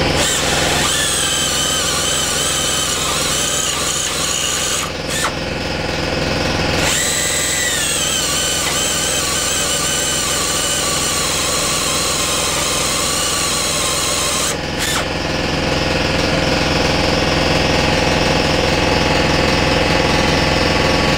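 Hand-held drill boring out a steel rivet in a rifle's rear trunnion, the bit squealing at a high, wavering pitch. The drilling breaks off briefly about five seconds in and stops about fifteen seconds in. A steady machine hum runs underneath.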